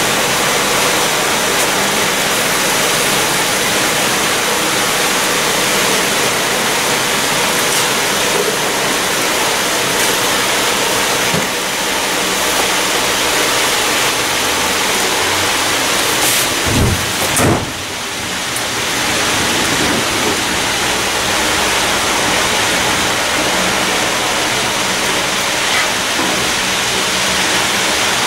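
A big fan blowing hard, a loud steady rushing noise of moving air and wind on the microphone. About two-thirds of the way through there are two short thumps.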